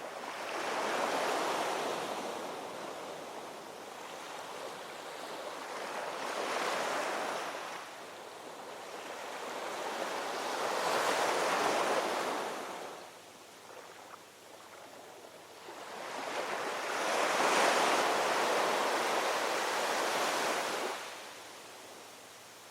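Waves washing in: rushing surges of surf that swell and fade four times, each lasting a few seconds.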